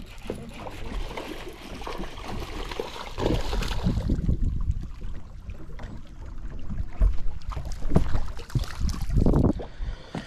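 Wind buffeting the microphone in uneven gusts, with water lapping against the hull of a bass boat.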